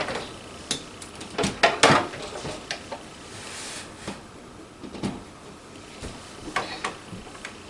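Scattered clicks and knocks of plugs and cords being handled: a radio is unplugged and an electric typewriter's plug is pushed into the outlet.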